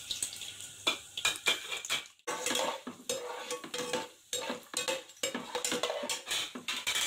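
Metal slotted spatula scraping and clinking against a non-stick pot in repeated strokes, stirring whole spices in hot oil that sizzles underneath. There is a brief break about two seconds in.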